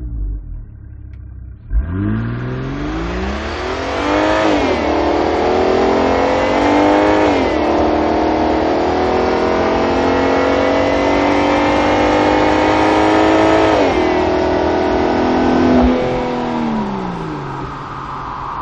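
Volvo Polestar engine pulling hard under full throttle, its pitch climbing through the revs and dropping back at each upshift, three upshifts in all, before easing off near the end.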